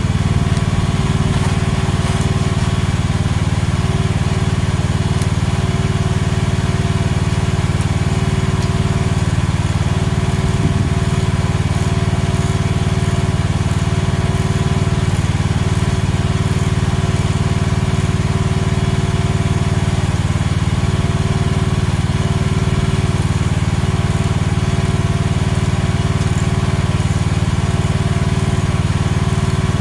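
AGT H13R mini excavator's engine running steadily at a constant speed.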